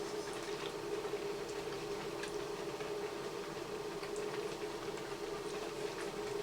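A steady hum with faint, scattered small ticks and pops over it.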